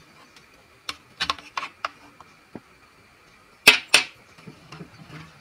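Small plastic and tin toy grocery items clicking and knocking as they are handled and set down on a table, with two sharper knocks close together about three and a half seconds in as a miniature tin is put down.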